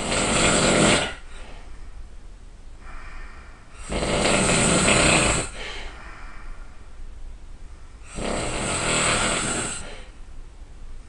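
A person snoring terribly loud: three long snores about four seconds apart, each lasting a second or so, with quieter breathing between them.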